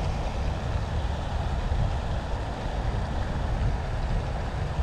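Wind buffeting the action camera's microphone: a steady low rumble.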